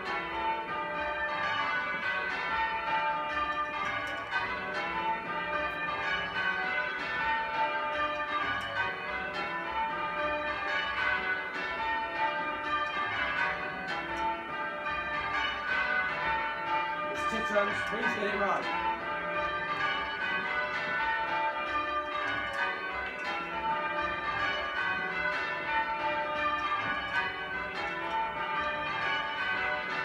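A 20 cwt ring of eight church bells being change rung, heard from the ringing chamber below: a continuous, even stream of overlapping bell strokes. A short voice breaks in briefly just after halfway.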